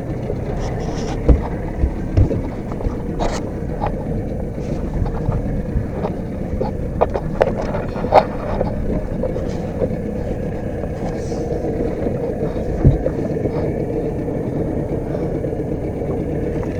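Boat engine running steadily at trolling speed, with rushing wind and water noise and a few sharp knocks scattered through.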